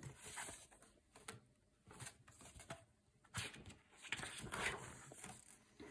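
Faint rustling of a paper picture-book page being turned by hand, strongest about three and a half to five seconds in.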